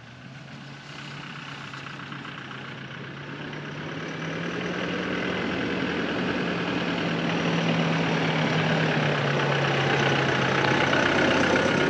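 Toyota Hilux pickup with a camper cabin driving slowly toward the listener, its engine running at a low, even speed and growing steadily louder as it approaches.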